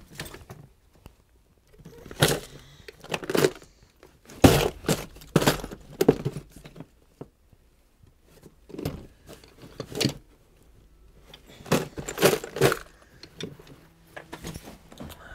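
Tools and metal objects being rummaged through and moved about: clinks, knocks and rattles in several short bursts with quiet gaps between.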